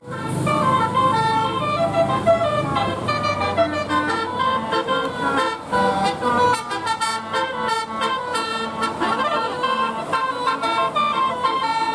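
Telolet bus horn, an electric multi-tone horn, playing a fast melody of short notes whose pitch steps up and down several times a second.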